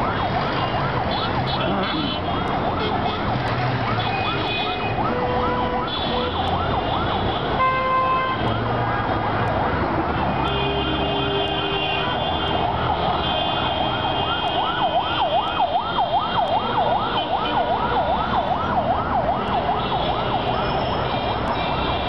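Traffic-jam din with a fast warbling siren sweeping up and down several times a second throughout, over idling engines. Vehicle horns honk on top in short and longer blasts.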